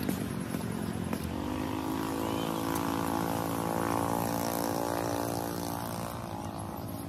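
An engine passing by: a steady hum with many overtones that rises in pitch about a second in, grows loudest around the middle, then fades.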